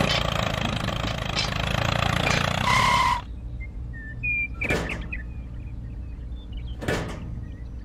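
An engine-like running noise that cuts off about three seconds in, just after a short two-tone beep. Then two sharp clicks of small metal parts being set down on a model transformer.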